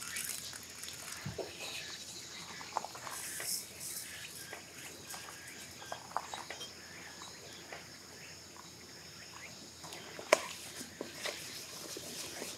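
Steady high-pitched chorus of summer insects, with scattered small clicks and knocks of food and utensils being handled. A sharper knock about ten seconds in is the loudest sound.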